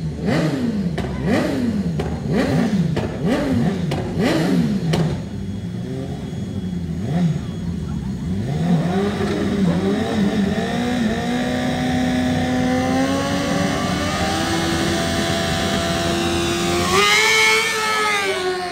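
A racing motorcycle engine is revved in about five short blips, then accelerates hard, its pitch climbing in steps before jumping sharply near the end.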